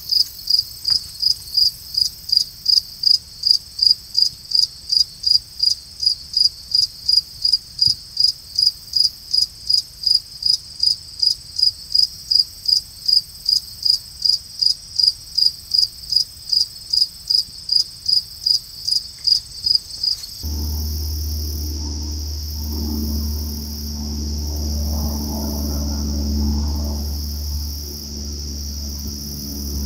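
An insect chirping in an even rhythm, about two short high chirps a second. About two-thirds of the way through, the sound switches abruptly to a continuous high insect trill over a low steady rumble.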